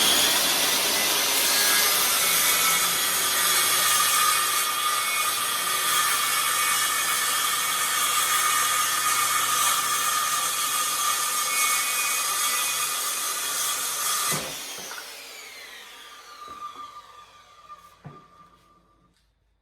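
An electric power saw cuts through a 3/4-inch poplar board, with a steady whine over the cutting noise. About fourteen seconds in it is switched off, and its pitch falls away as the blade spins down.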